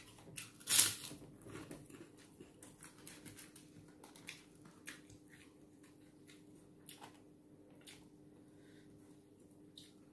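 Close-up eating sounds: a sharp crunchy bite about a second in, then soft chewing and scattered small clicks of a spoon and fingers in a food box, over a faint steady hum.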